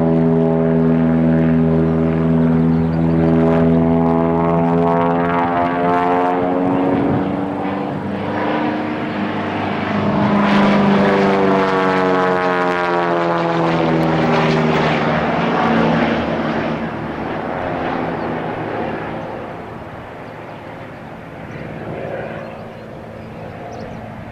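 Cessna Agwagon topdressing plane's piston engine and propeller running at power as the aircraft passes, the pitch sweeping as it goes by, then fading away over the last several seconds.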